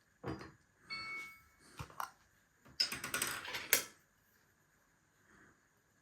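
Kitchen handling sounds: knocks and clinks of dishes and utensils, one clink ringing briefly about a second in, then a rapid clatter of about a second starting near the three-second mark.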